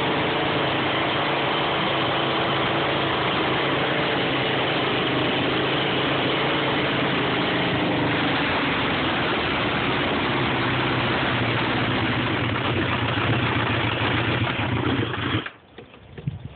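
A vehicle engine idling roughly at a steady level, then switched off about fifteen seconds in, the sound cutting off suddenly.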